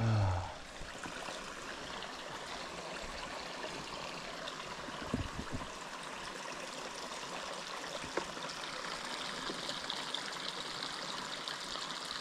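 Trout stream water flowing steadily. A short loud sound slides down in pitch right at the start, and there are a few faint clicks later on.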